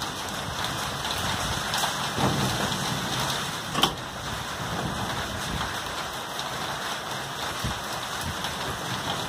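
Steady rain falling, a continuous hiss, with a few sharp close-by drop ticks, the loudest about four seconds in.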